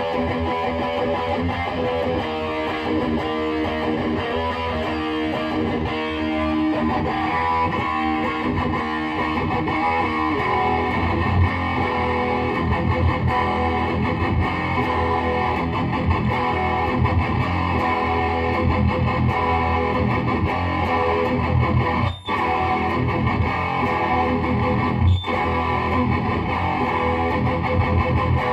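High-gain distorted electric guitar: a Gibson Les Paul 1960 Reissue played through a Lone Wolf Audio Bullet Belt pedal into a Peavey 6505 amp and 2x12 cab. Ringing chords give way after about ten seconds to a chugging riff on the low strings, which cuts off sharply for an instant twice near the end.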